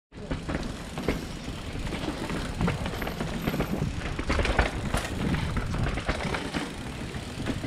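Mountain bike riding downhill over rough ground: a steady rumble of tyres on the trail with frequent sharp rattles and knocks from the bike.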